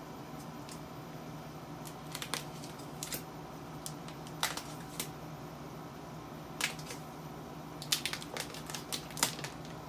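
Thin plastic protective film crackling in scattered sharp crinkles as it is peeled off an iMac's glass screen, busiest near the end, over a steady low hum.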